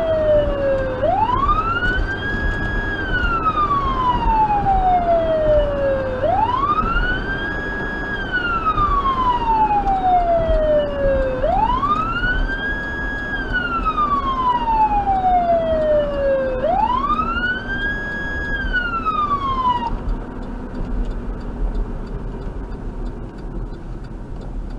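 Federal Signal Touchmaster Delta electronic siren in wail mode, heard from inside the vehicle's cabin: each cycle climbs quickly, holds a moment, then sinks slowly, about every five seconds. The siren cuts off after four cycles, leaving steady road and engine noise.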